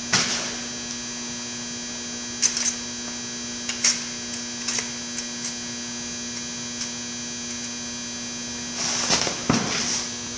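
Steady electrical hum, broken by a few short clicks and knocks of metal transmission parts being handled during an E4OD teardown: one right at the start, a couple around two and a half to four seconds in, and a short cluster near the end.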